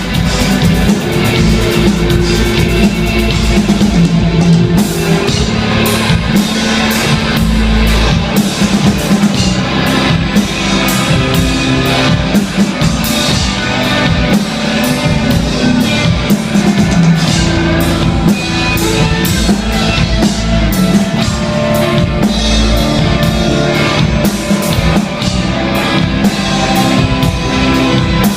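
Instrumental rock band playing live: drum kit and guitars in a dense, loud, steady passage with regular drum hits.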